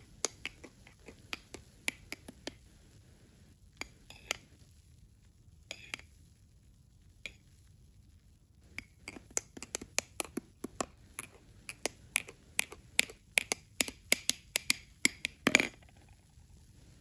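Metal spoon clinking and tapping against a glass tumbler while it stirs and scoops milk foam. Scattered taps at first, then a quick run of clinks in the second half that ends on one louder knock.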